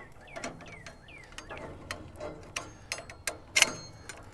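Metal spatula and wire fish-grilling basket clicking and scraping against a gas grill's cooking grates, an irregular run of light metallic clicks with one sharper clack about three and a half seconds in.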